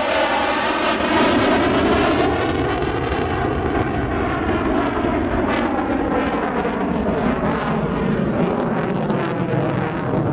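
F-16 fighter jet engine noise as the jet flies its demonstration maneuvers: a loud, steady jet rush whose evenly spaced bands of pitch sweep down and back up as the aircraft moves past.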